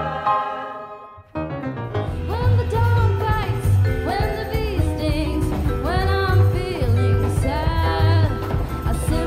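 A held chord fades away in the first second; then a small jazz combo with double bass and drums starts up under a woman singing with vibrato, the bass and drums keeping a steady beat.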